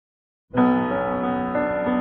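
Silence, then piano music starts suddenly about half a second in, with several notes held together.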